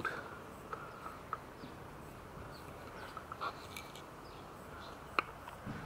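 Quiet outdoor background with a few faint clicks and ticks from handling a 44 mm tripod ball head. There is one sharper click about five seconds in.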